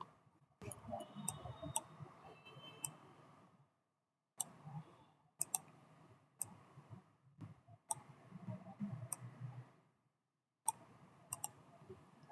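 Computer mouse clicking: a dozen or so single clicks at irregular intervals, about one every second, over faint low background noise that cuts in and out.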